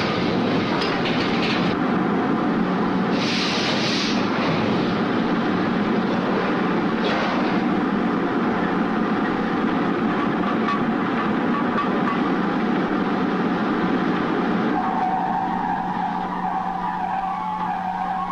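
Oil drilling rig machinery running on the derrick floor: a loud, steady clattering drone with a constant hum under it and a short hiss about three seconds in. About three-quarters of the way through, a high squealing whine joins as the hoisting gear moves the travelling block.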